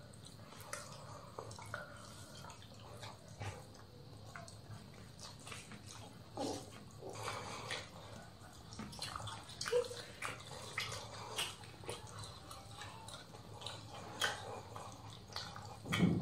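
Eating with the hands: fingers squishing and mixing rice on a banana leaf, with chewing and lip smacks. A scatter of soft, wet clicks and smacks, a little louder a few times.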